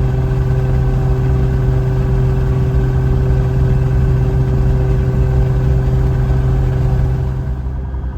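Piper Lance's six-cylinder Lycoming aircraft engine running steadily and evenly, a loud, smooth drone. It eases slightly near the end.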